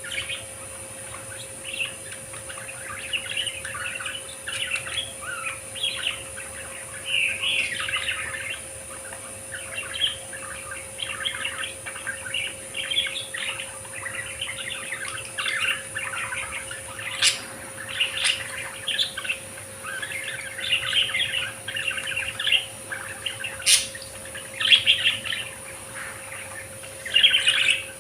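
Budgerigars chattering and warbling continuously, a dense stream of irregular twittering with a few sharper chirps standing out.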